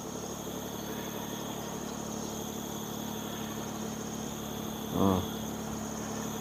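Steady high-pitched insect chirring over a low steady hum, with one short voice sound about five seconds in.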